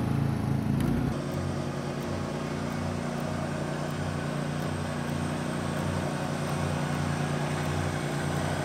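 John Deere riding lawn mower engine running just after being started. It is louder for about the first second, then settles into a steady idle.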